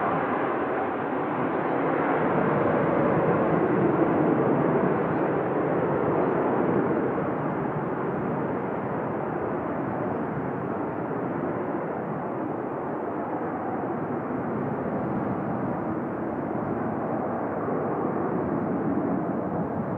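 McDonnell Douglas MD-83's two rear-mounted Pratt & Whitney JT8D turbofans at takeoff thrust, a loud, steady jet rumble heard from the ground as the aircraft climbs out. It peaks a few seconds in, then slowly fades as the jet draws away.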